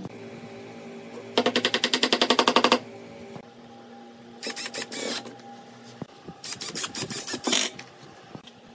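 Cordless impact driver driving screws into wood: three bursts of rapid hammering rattle. The first and longest, and the loudest, starts about a second and a half in; two shorter runs follow about four and a half and six and a half seconds in.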